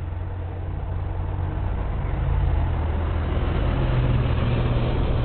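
Low, steady rumble of a motor vehicle engine with a humming drone, growing louder about two seconds in.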